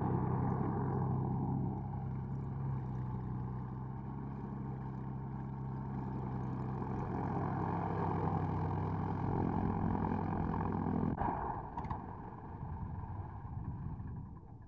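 Small single-engine propeller plane's piston engine running steadily as it taxies. The steady engine note stops about eleven seconds in and the sound drops to a quieter, rougher rumble as the engine is shut down and the propeller stops.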